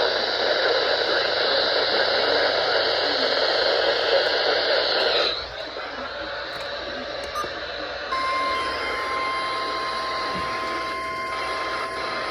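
Radio static hiss that cuts out about five seconds in. About three seconds later a steady single-pitch alert tone begins: the NOAA Weather Radio 1050 Hz attention signal that comes before an emergency alert message.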